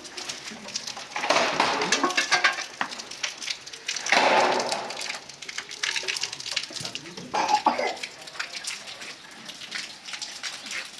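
Kitchen handling sounds: dishes and utensils knocking and clinking, with a few longer scraping or rustling stretches.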